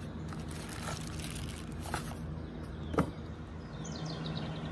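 Cardboard packaging being handled: soft rustling and a sharp click about three seconds in, over a steady low hum.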